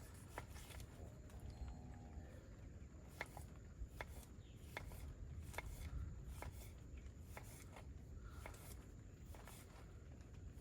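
Knife chopping vegetables on a cutting board: short, sharp taps at an uneven pace, about one or two a second, over a low steady rumble of rain.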